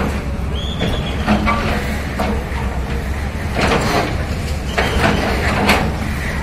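Diesel engine of a tracked hydraulic excavator running steadily under load, with the crash and clatter of brick and concrete breaking and falling as its bucket pulls down a building front; several sharp crashes come through the steady rumble.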